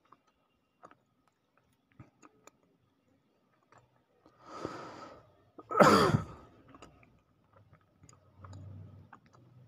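A person breathes in and then sighs out, loudly and with falling pitch, about six seconds in. Faint scattered clicks come before it, and a quiet low hum comes near the end.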